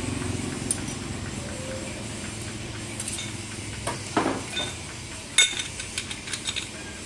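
Light metallic clinks and clicks of a Bajaj Pulsar 220F's clutch plates and pressure plate knocking together as the stacked clutch pack is handled. The clicks are scattered, bunching in the second half with the sharpest about five and a half seconds in, over a low steady background hum.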